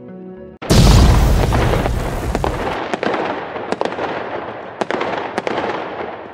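Soft background music cut off about half a second in by a loud firecracker blast, followed by a dense crackling that slowly dies away, with sharp separate bangs scattered through it.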